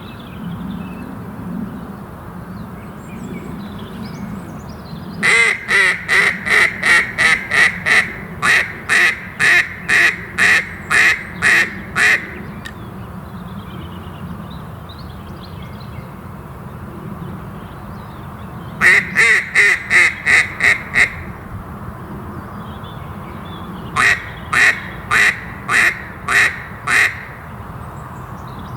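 A duck quacking in three runs of loud, evenly repeated quacks, about two a second. The first run is long, about seven seconds. Two shorter runs come later. A steady background hush lies underneath.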